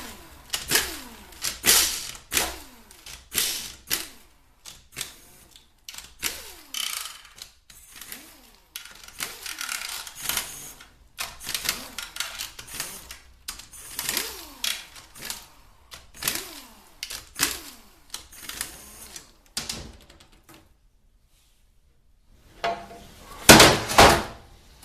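Hand ratchet with a 13 mm socket clicking in repeated short runs as the bolts of a 4L60E transmission's oil pan are backed out. The runs stop for a couple of seconds near the end, then a couple of loud knocks follow.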